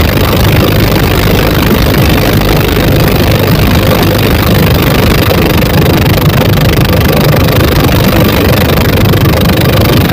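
Twin 24 HP dompeng single-cylinder diesel boat engines running loud and steady, driving a wooden boat on a speed run.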